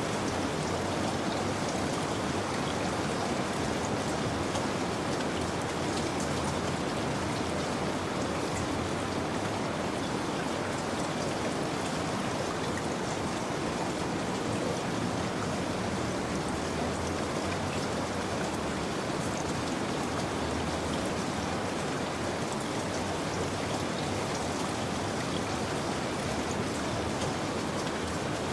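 Steady heavy rain falling, an even hiss with faint scattered drop ticks.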